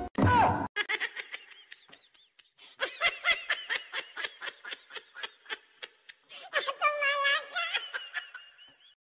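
A person laughing in fits of quick, short pulses, two long runs with a pause between, after a brief loud sound right at the start.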